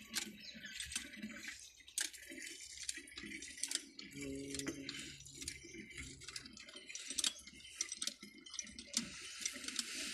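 Water splashing out of a cast-iron hand pump as its lever is worked, with repeated sharp clicks and knocks from the pump handle.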